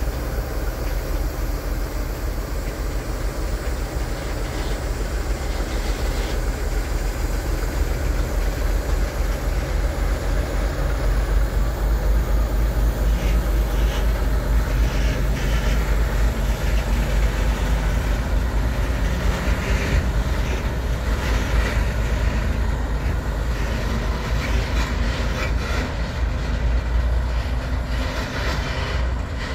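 ČKD T 669.1 (class 771) six-cylinder diesel-electric locomotive running with a steady low rumble as it hauls a freight train past. From about halfway through, the wagons' wheels click over the rail joints.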